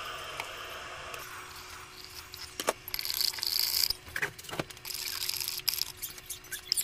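Metal spoon stirring coffee in a tall drinking glass, clinking and scraping against the glass in two bursts of rattling, with a few separate sharp clinks. A steady hiss fades out about a second in.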